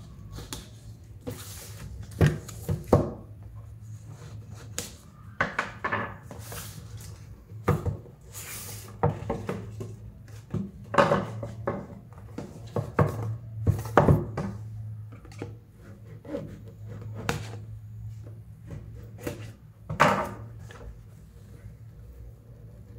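Cardboard packaging of an action camera being opened and handled: irregular taps, clicks and short scraping or rustling noises, a dozen or more through the stretch.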